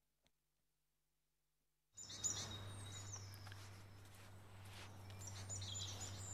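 Near silence, then about two seconds in an outdoor ambience begins: birds chirping repeatedly over a steady low hum and background noise, with a short tap just after it starts.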